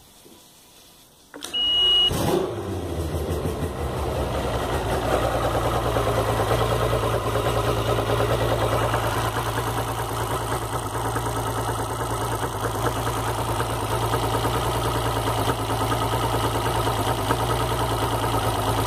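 Mercury Optimax 200 HP outboard, a two-stroke direct-injection V6, started at the key: a short high beep from the warning horn, the engine catches about two seconds in, then idles steadily with a low, even hum.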